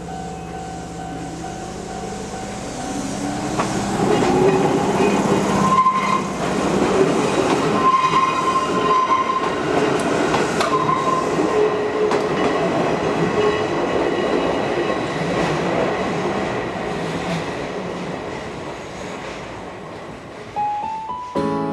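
An electric train of the Izuhakone Railway Daiyuzan Line passing over a level crossing: its wheels run loud on the rails, building about four seconds in and fading away near the end. Guitar music comes in just before the end.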